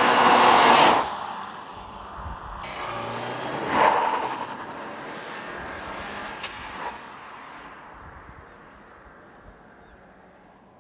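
Volkswagen CC R-Line with a turbocharged four-cylinder driving past at speed: engine and tyre noise swell to a loud peak in the first second and again about four seconds in, then fade away as the car recedes.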